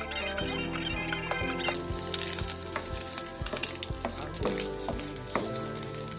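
Chicken livers sizzling as they fry in hot oil in a pan, a steady hiss that starts about two seconds in.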